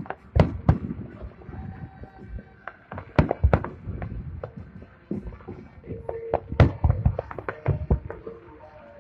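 Fireworks going off in an irregular string of sharp bangs and cracks, with quieter gaps between them. The bangs bunch together about three seconds in and again from about six to eight seconds.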